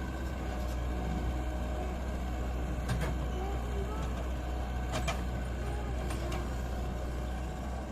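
Heavy diesel engine of construction machinery running steadily with a deep hum, with a few sharp metallic knocks about three, five and six seconds in.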